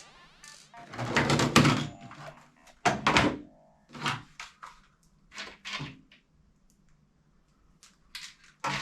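Toy guns being handled: a run of separate hard knocks and clunks, the loudest about a second and three seconds in, then a quiet spell before a few more knocks near the end.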